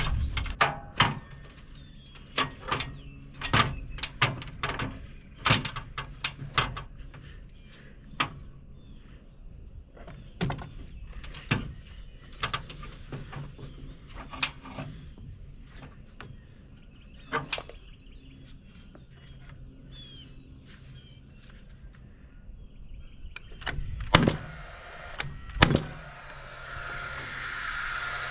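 Wooden framing boards knocking and clattering as they are handled, an irregular run of sharp knocks with a quieter stretch past the middle. Two louder bangs come about a second and a half apart near the end.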